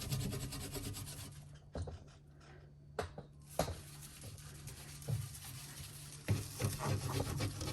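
A cloth wiping and rubbing a fridge's surfaces, with a few light knocks in the first half.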